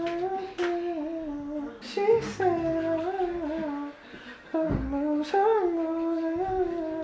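A singer humming a wordless falsetto melody in long held notes, in three phrases; the lyrics have been forgotten mid-take.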